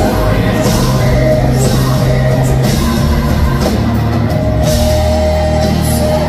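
Live rock band playing loud: drum kit with crashing cymbals under a dense wall of guitars and bass, with a long held note about two thirds of the way through.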